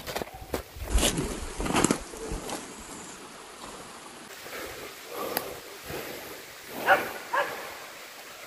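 A dog barking in short bursts, with two clearer barks close together near the end.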